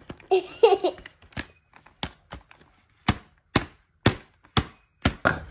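A short laugh, then a run of sharp clicks, about two a second in the second half, from fingers pressing and tapping at the perforated door of a cardboard Advent calendar.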